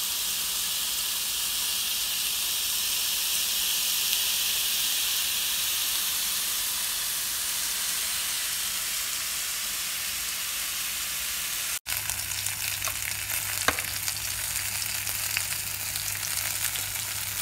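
Beef hamburger patties sizzling in a hot ridged grill pan: a steady frying hiss. After a cut a little before the end it turns more crackly, with scattered sharp pops over a low hum, as the patties brown.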